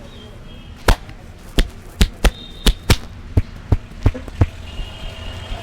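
A barber's hands making a quick run of about eleven sharp smacks during a head massage, a few tenths of a second apart and a little uneven in pace.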